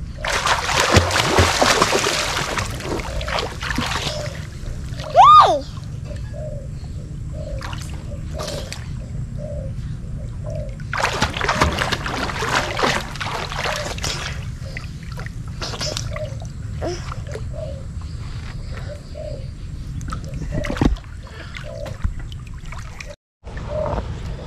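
A child in a life jacket splashing and kicking in river water, with two spells of heavy splashing, about a second in and again about eleven seconds in. A brief, loud, high squeal rises and falls about five seconds in.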